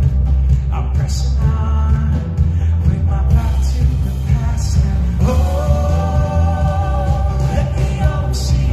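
Live worship band playing a rock song: singing over electric guitars, bass, drums and keyboard, with very heavy bass. A long sung note is held from about five seconds in.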